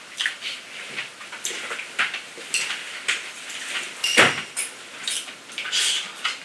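Eating noises at a table: a man chewing a mouthful of noodles, with small irregular clicks of chopsticks and a louder knock about four seconds in.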